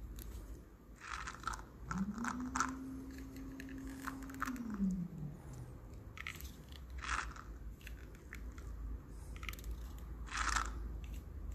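Soapy, frothing blood simulant crackling and popping in the wound of a Wound In A Box moulage as a 300cc syringe draws it in and pushes it out through the bloodline, simulating a sucking chest wound. Irregular wet crackles throughout, with a low drawn-out tone starting about two seconds in that holds for about three seconds and then drops.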